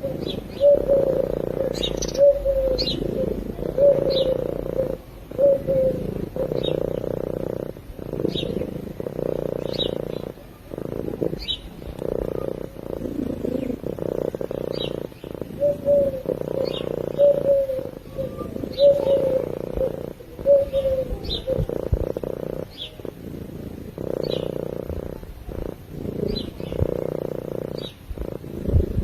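Domestic cat purring steadily, with brief breaks every second or two. Short high chirps recur about once a second above the purr.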